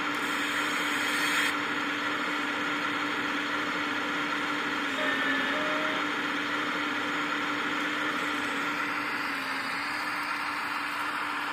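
Hydraulic pump of a 1/14-scale RC hydraulic excavator running with a steady whine, its pitch sagging slightly a couple of times as the arm digs and lifts under load, over a constant hiss.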